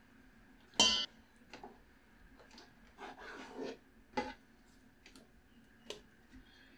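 Metal bench scraper chopping sticky bread dough on a countertop and knocking against a stainless steel mixing bowl as pieces are dropped into the flour: scattered knocks and scrapes, the loudest a sharp metallic clank about a second in.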